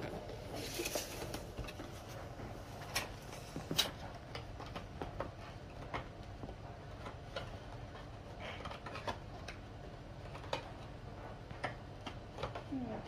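Scattered light clicks and taps with a short rustle about a second in, from a small cardboard box being handled and opened by hand.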